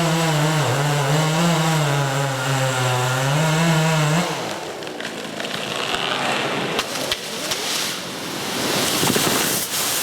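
Chainsaw engine running under cutting load, its pitch wavering up and down, until it stops about four seconds in. After it, crackling and rustling noise with sharp snaps.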